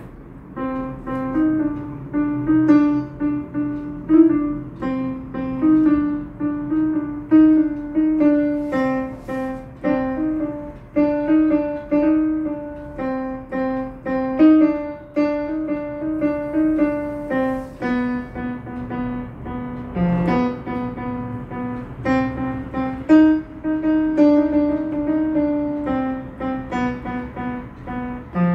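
Yamaha PSR-E473 keyboard sounding a steady run of piano-voice notes, a melody over lower chords at several notes a second.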